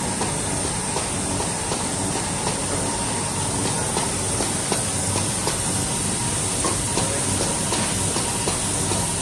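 Automatic 0603 inductor testing and tape-packaging machine running: a steady mechanical hum with frequent small clicks from its moving parts.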